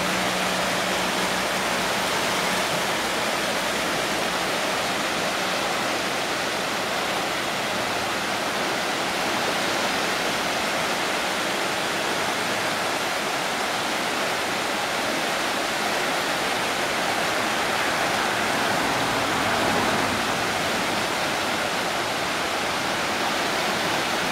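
Rain-swollen creek in flood, its muddy water rushing past in a steady, even rush of noise.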